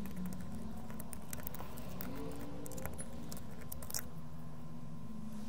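Faint clicks and light rattles of a headphone ear cup's plastic parts being handled and worked with a small screwdriver, over a steady low hum.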